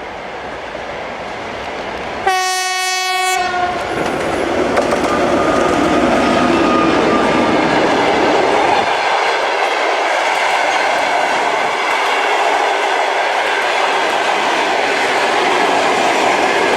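Diesel locomotive sounding one horn blast of about a second, a single steady note, a couple of seconds in. The train then passes with a loud, steady rumble and clatter of wheels on the rails.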